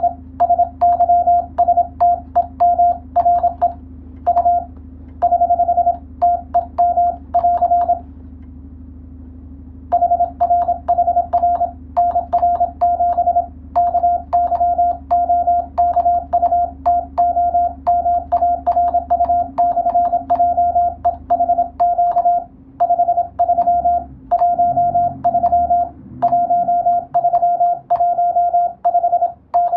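Morse code (CW) tone near 700 Hz keyed in quick dots and dashes, with a pause of about two seconds roughly eight seconds in.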